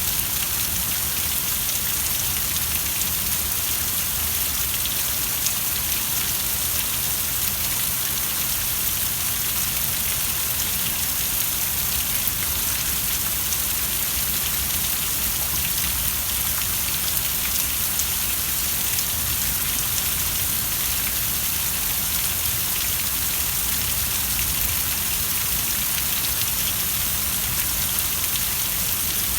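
Steady rainfall, an even hiss of many drops with fine scattered patter, unchanging throughout.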